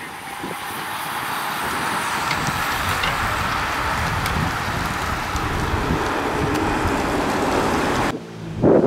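A group of racing bicycles passing close by: tyres whirring on the asphalt, swelling as the riders come near, with a few faint clicks. The sound cuts off suddenly near the end, and a brief loud sound follows right at the end.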